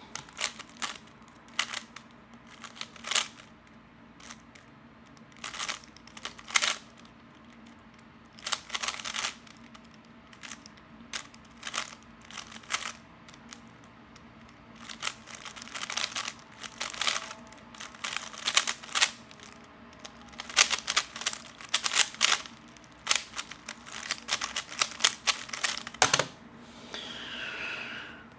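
3x3 speedcube being turned quickly during a timed solve. The layer turns make rapid clusters of plastic clicks with short pauses between them.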